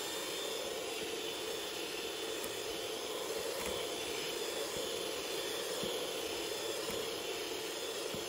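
Electric hand mixer running at a steady speed, its beaters whipping cream cheese foam in a stainless steel bowl: an even, unchanging whir.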